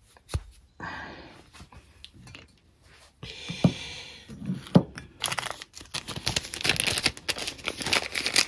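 Protective plastic cap pulled off the tip of a new Bosch K-Jetronic fuel injector, with a sharp click near the start and a few small clicks as the parts are handled. From about five seconds in, plastic packaging crinkles densely and keeps on.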